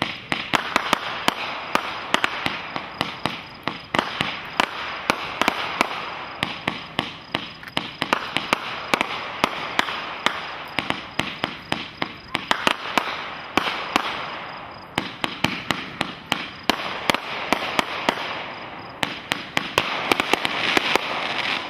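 Soaring Eagle Fighter Mission 40-shot, 500-gram fireworks cake firing: a fast, continuous stream of launch pops and crackling bursts, with a few short lulls, dying away at the end.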